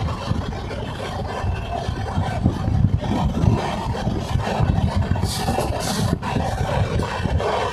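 Passenger train coach running on the rails, a steady low rumble with clatter and rattle from the wheels and carriage. Two short hisses come a little over five seconds in.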